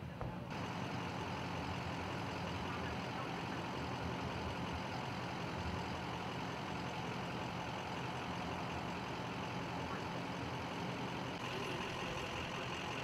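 A large vehicle engine idling steadily, a constant low drone that sets in abruptly about half a second in.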